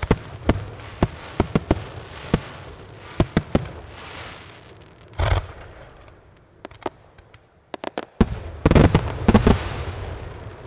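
Aerial fireworks display: shells bursting in rapid, irregular bangs, with a heavier boom about five seconds in. A short lull with a few small pops follows, then a dense cluster of loud bangs near the end that trails off into a fading rumble.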